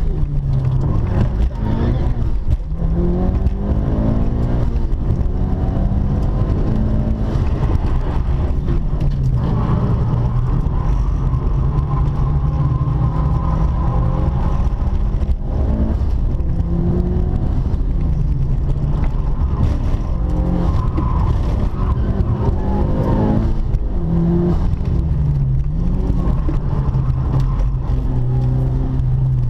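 Mitsubishi Lancer Evolution V's turbocharged 2.0-litre four-cylinder engine, heard from inside the cabin, driven hard through corners. Its note rises and falls again and again as the car accelerates, lifts off and changes gear.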